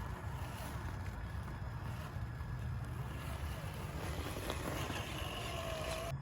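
Steady low rumble of wind buffeting the microphone, with a faint whine rising in near the end.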